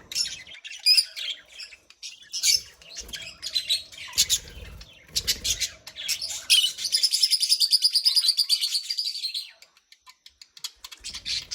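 Budgerigars chirping and chattering with many short high chirps. From about halfway through, one bird gives a fast, even warbling trill for about three seconds, then the calls die down near the end.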